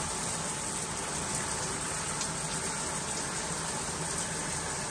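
Shower running: a steady spray of water from the shower head striking the shower wall.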